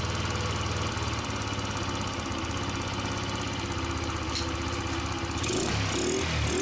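Small scooter engine running at a fast idle while its carburetor is being set; near the end the revs rise and fall a few times.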